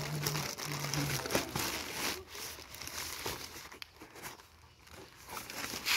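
Plastic courier mailer bag crinkling and rustling as it is handled and a cardboard box is pulled out of it, fading out in the last couple of seconds.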